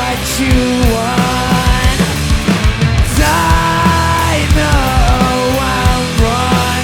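Rock band playing live: drums hitting steadily under guitars and bass, with a melodic lead line that bends and slides between held notes.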